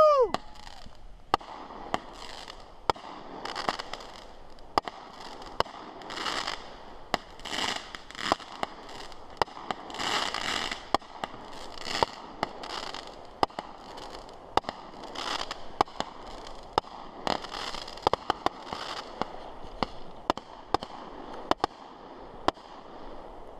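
Fireworks show going off: sharp bangs at uneven intervals, sometimes several close together, mixed with repeated crackling bursts that swell and fade over about half a second each.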